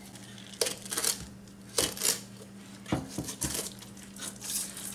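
Fillet knife cutting and scraping through a sheepshead's scaly skin and flesh on a wooden cutting board: several short, sharp crunching strokes, with a quick cluster of them about three seconds in.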